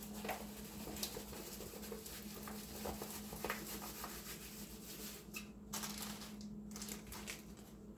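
A large diamond-painting canvas being rolled up by hand: a soft continuous rustle with a few light clicks.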